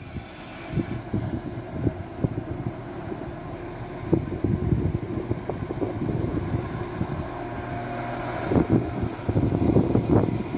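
Irish Rail 22000 Class diesel multiple unit passing slowly at close range: its diesel engines hum steadily while the wheels click irregularly over the rail joints. There is a thin high squeal in the first second and brief hisses later on.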